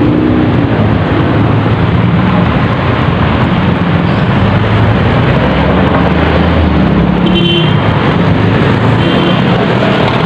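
Steady road traffic from vehicles passing close by: a constant loud rush with a low engine hum underneath. A short high tone sounds about seven seconds in.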